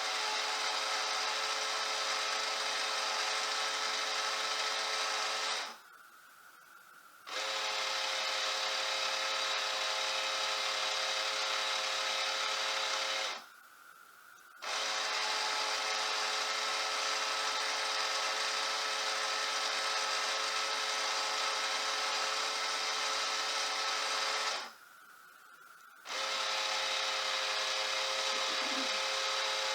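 Clack water softener control valve's drive motor running with a steady whine, stopping briefly three times and then starting again: the valve being stepped through its regeneration cycles.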